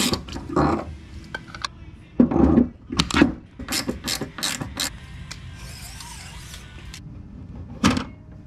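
Ratchet wrench clicking and metal clinking as the nut holding the wire spool on a MIG welder's spindle is turned. A quick run of separate clicks and knocks comes over the first few seconds, then a quieter stretch and one more sharp knock near the end.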